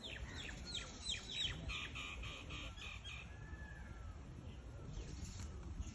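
A bird calling: a quick series of about seven falling notes, then a run of short, evenly repeated notes that stops about three seconds in, with a few fainter calls later.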